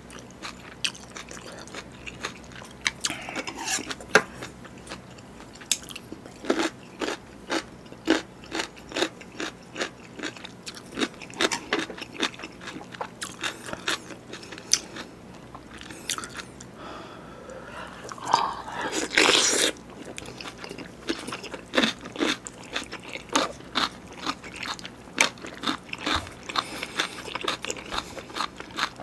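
Close-miked chewing and biting: soft beef bulgogi and crunchy cubed radish kimchi crunching between the teeth, with many short wet mouth clicks. One louder, longer sound comes about two-thirds of the way in.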